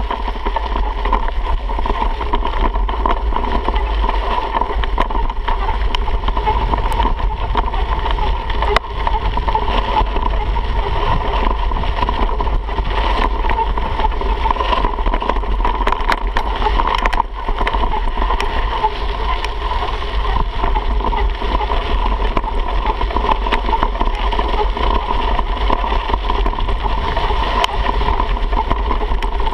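Mountain bike coasting fast down a rough dirt trail: wind buffeting the handlebar-mounted camera's microphone and the bike rattling over bumps, with a steady high hum underneath and scattered sharp clicks.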